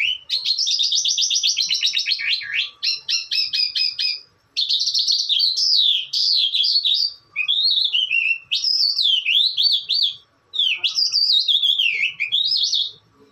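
A songbird singing a long, varied song: a fast trill, then a run of quick repeated notes, then sweeping up-and-down whistled phrases broken by a few short pauses.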